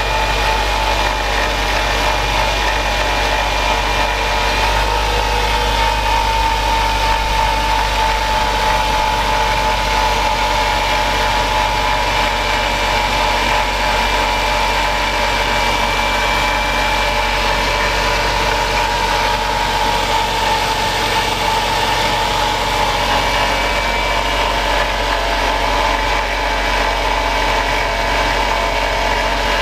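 2004 Mazda 6 1.8 petrol four-cylinder engine idling steadily, with an abnormal noise coming from the top corner of the engine: a steady high tone that wavers slightly in pitch over the running.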